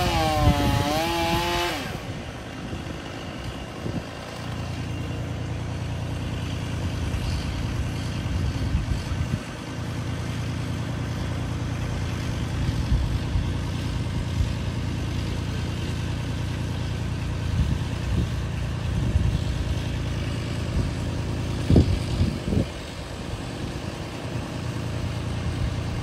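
A chainsaw revs for about two seconds and stops. A low, steady engine hum runs on after it, with a few sharp knocks toward the end.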